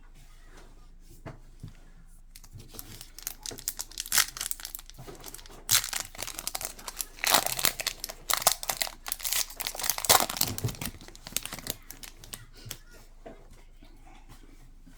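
Foil trading-card pack wrapper crinkling and tearing as it is opened, a run of dense crackles that builds about three seconds in and dies away near the end.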